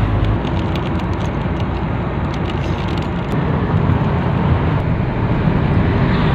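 Steady rumble of a car driving at speed, heard from inside the cabin: engine, tyre and wind noise with no change in pace.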